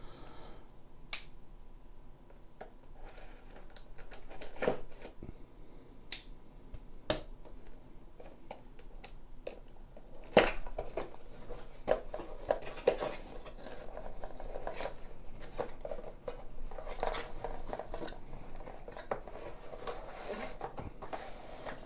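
Cardboard product box being opened by hand: a few sharp clicks and snaps, then busier scraping and rustling of cardboard and packaging from about ten seconds in.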